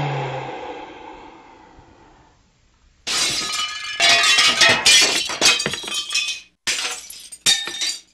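A sudden hit that fades away over a couple of seconds. After a short pause comes a run of loud crashing and shattering, like glass breaking, with clinking and ringing between the crashes.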